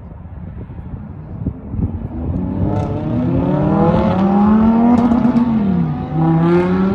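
Car engine accelerating hard, its pitch climbing steadily, then dropping once near the end at an upshift and climbing again.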